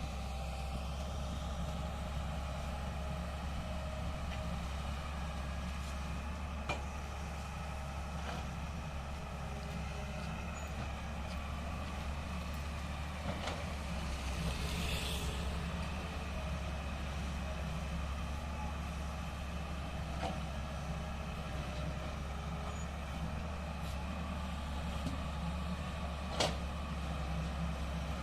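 Tata Hitachi excavator's diesel engine running steadily under load, with a constant low drone. A few short knocks are scattered through it, and there is a brief hiss about halfway.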